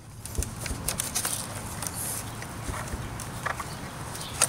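Quiet handling sounds of a vacuum cleaner's rubber drive belt being worked onto the motor shaft and brush roller: a few light clicks and knocks over a steady background hiss.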